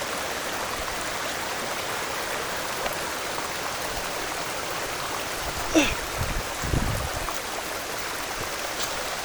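Steady rush of the waterfall's stream water flowing over rock. About six seconds in comes a short rising voice sound, followed by a few low thumps.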